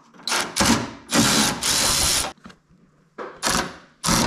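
A power driver spinning out 10 mm bolts in several short bursts: three longer runs in the first couple of seconds, then briefer ones near the end.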